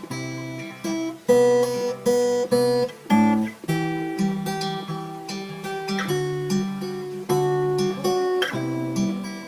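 Acoustic guitar playing a chord progression, each chord struck sharply and left to ring, with no singing.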